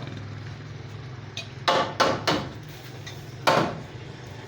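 Hammer blows on wood during panel-door carpentry: three quick strikes a little under two seconds in, then a single loud one about a second later, over a steady low hum.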